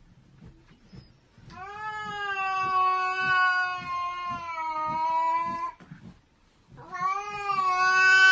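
Angry cat caterwauling: one long, drawn-out yowl lasting about four seconds, then a second yowl starts near the end.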